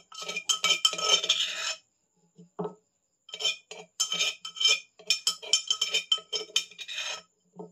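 Metal utensil clinking and scraping against a metal vessel. A dense run of taps comes in the first two seconds, then a single knock. After that, rapid clinks come several a second, each with a short metallic ring.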